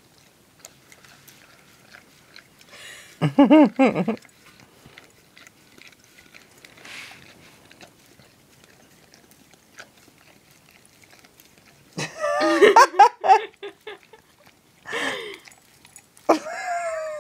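A dog licking and nudging a muffin around a stainless steel food bowl, with faint scattered clicks and licks. Short wordless voice sounds break in about three seconds in and several more times in the last five seconds.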